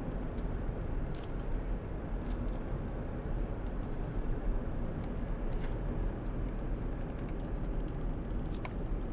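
A car driving, heard from inside the cabin: a steady rumble of engine and road noise, with a few faint clicks.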